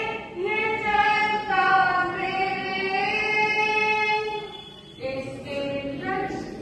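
A Jain nun singing a devotional bhajan solo, in long held notes that slide between pitches, with a brief pause between phrases about four and a half seconds in.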